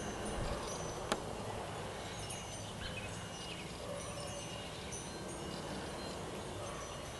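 Faint outdoor ambience: scattered short high-pitched tones over a steady background hiss, with one soft click about a second in.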